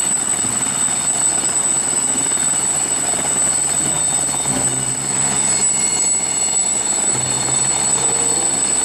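Helicopter sound effect: steady, loud rotor and engine noise with a high thin whine held throughout.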